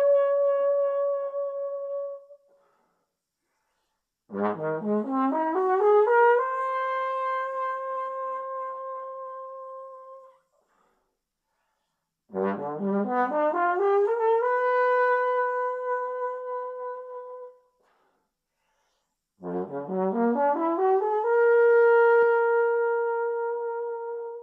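Trombone playing three separate phrases, each a quick climb in steps from a low note up the natural notes of one slide position to a long held high note that fades away. Each held note is slightly lower than the last as the slide is moved out to the next position, demonstrating the notes each slide position gives.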